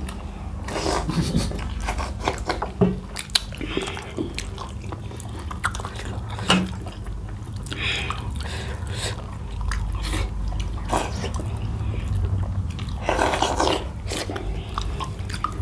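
Close-up eating sounds: chewing and biting into chicken curry and millet dhido, with scattered small clicks and a few louder mouth noises, the longest about 13 seconds in.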